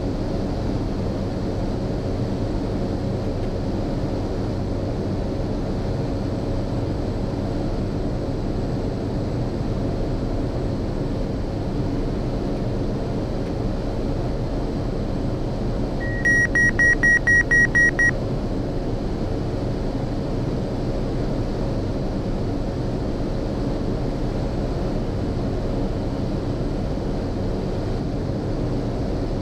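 Steady cabin drone of a Cessna Caravan's Pratt & Whitney PT6 turboprop on approach. About two-thirds of the way in, a cockpit alert tone sounds a quick run of about eight high beeps over two seconds.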